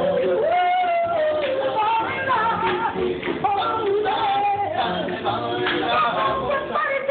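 Men's street vocal group singing a song in harmony, a high lead voice over the others, with a plucked upright bass walking underneath.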